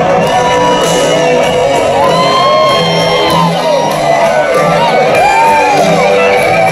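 Live rock band playing loud, with a Les Paul-style electric guitar taking the lead in a solo of bent, gliding notes over the band. Shouts come from the surrounding crowd.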